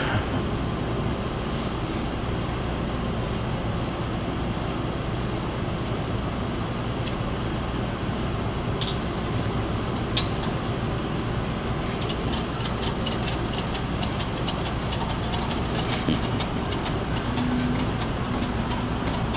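Vehicle engines idling in a steady low rumble, with a fast run of fine clicking joining about twelve seconds in.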